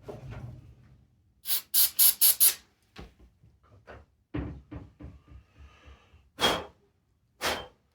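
Aerosol cleaner sprayed onto a spark plug's electrode to clean it: four quick hissing squirts about a second and a half in, then two more near the end, with light clicks and knocks of the can and plug being handled in between.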